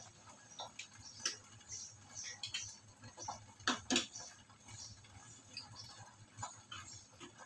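Chicken gravy simmering in a covered pan, bubbling with irregular soft pops and ticks, two louder pops close together a little before halfway.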